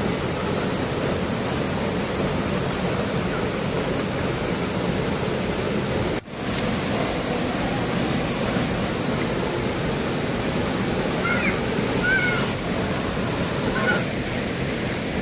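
Steady rush of river and waterfall water, cut off for an instant about six seconds in, with a few faint short chirps near the end.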